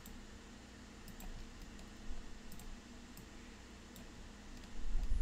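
Faint, scattered computer mouse clicks over a steady low hum, with a louder low rumble near the end.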